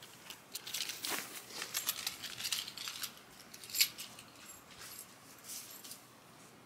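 Footsteps walking away across grass: light rustles and clicks that grow fainter and die out after about six seconds.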